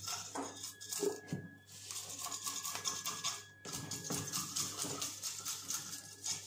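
Knife blade scraping the scales off a whole fish on a plastic cutting board: rapid, repeated rasping strokes with a couple of short pauses.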